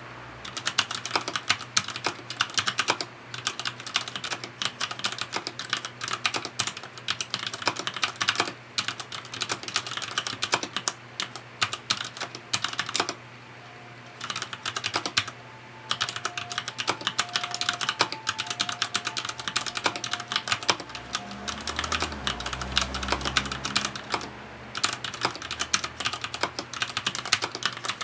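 Continuous fast touch-typing on a FILCO Majestouch 2 mechanical keyboard with Cherry MX Red linear switches. Rapid key strikes and bottoming-out clacks, with a few brief pauses.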